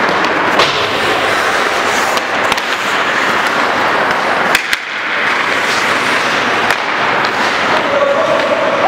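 Ice hockey skates scraping and carving on the rink ice, with a few sharp clacks of sticks on the puck, two of them in quick succession midway, echoing in an indoor arena.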